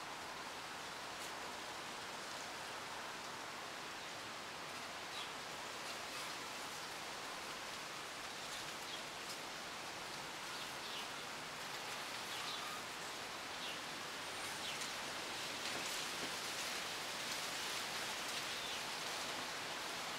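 Wind blowing through trees, bamboo and palm-like leaves, a steady leafy rustle that swells into a stronger gust in the second half. A few faint, short high chirps are scattered through it.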